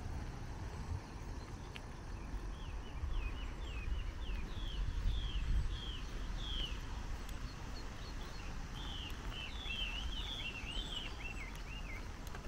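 A bird singing: a run of short, falling whistled notes, about two a second. After a pause comes a quicker jumble of notes, over a steady low rumble.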